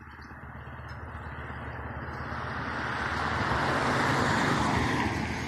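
A road vehicle driving past, its tyre and engine noise swelling to its loudest about four seconds in and then fading, over a steady low engine throb.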